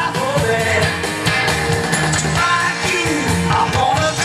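Rock song with a singing voice, played from a vinyl record through the phono input of a Sansui AU-717 integrated amplifier.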